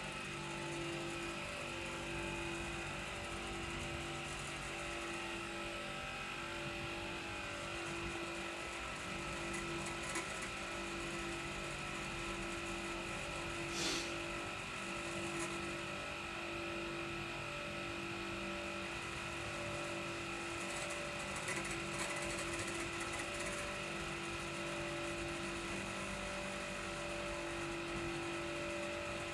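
Clarke 'Shhh' low-noise air compressor running steadily, a continuous motor and pump hum with a few steady tones. A single sharp click about halfway through.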